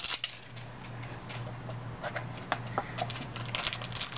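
Light, irregular clicks and crinkles of plastic wrapping and a plastic blind-ball shell being handled and opened by hand, over a steady low hum.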